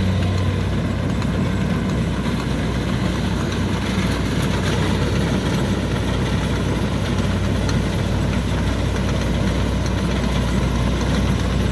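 Kubota DC70 rice combine harvester running steadily: its diesel engine and machinery make an even, low drone with no letup.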